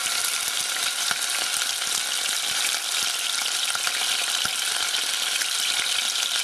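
Ground meat frying in hot oil in a stainless steel saucepan: a steady sizzle with many small spattering crackles, the oil hot enough to spit out of the pan.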